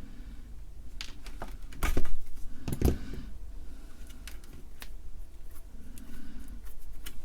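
Hand tools clicking and snipping on electrical wire as a wire is stripped, a scattering of sharp clicks with the loudest two about two and three seconds in.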